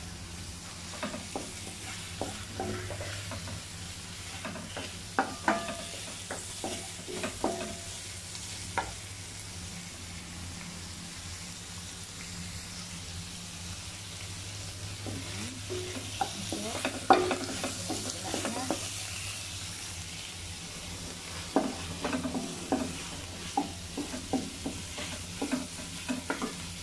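Shrimp, garlic and onion sizzling in a hot wok-style pan while a wooden spatula stirs and scrapes them. The stirring comes in spells of quick scrapes and knocks against the pan, with a calmer stretch of plain sizzling in the middle.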